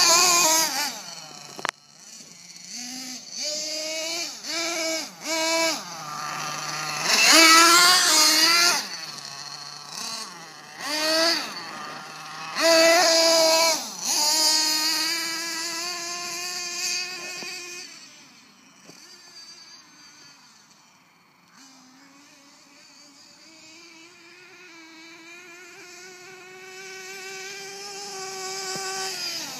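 Team Associated MGT 8.0 RC monster truck's small nitro engine revving in repeated short throttle bursts, the pitch rising and dropping with each one. It then fades to a faint hum as the truck runs far off across the field, and grows steadily louder again near the end.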